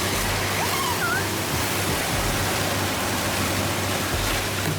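Steady rushing roar of tornado winds sweeping across a lake. A faint short cry sounds about a second in.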